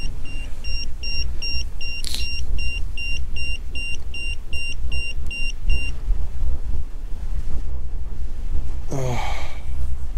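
Handheld EMF meter beeping rapidly, about three short high beeps a second: its alarm for a high electromagnetic field reading. The beeping stops about six seconds in. Wind rumbles on the microphone throughout.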